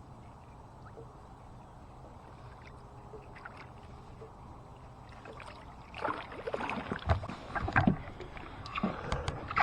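Low steady hum of a boat's motor while trolling slowly. From about six seconds in, it is joined by a quick run of knocks and rattles aboard the boat.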